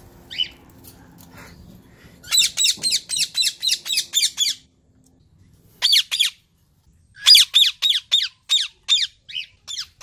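Indian ringneck parakeet calling in rapid runs of short, harsh squawks, each sliding down in pitch, about five a second, with a brief break in the middle.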